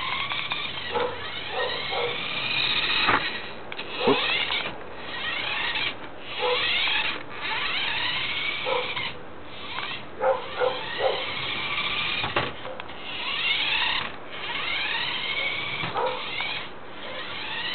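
Toy remote-control car's small electric motor and gearbox whining in short bursts, its pitch sweeping up and down as it speeds up and slows, with a few sharp knocks, one about four seconds in.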